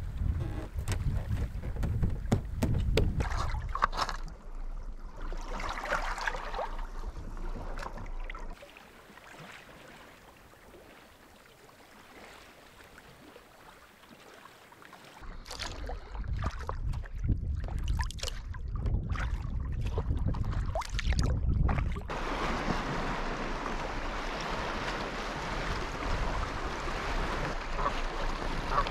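A kayak on the sea: water and paddle sounds, with wind rumbling on the microphone and sharp knocks at times. There is a much quieter stretch in the middle, and a steady hiss of water near the end.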